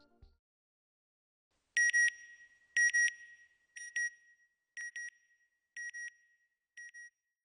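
Electronic sound-logo beeps: six high double beeps, one pair a second, starting about two seconds in. The first two pairs are loudest and the rest fade away.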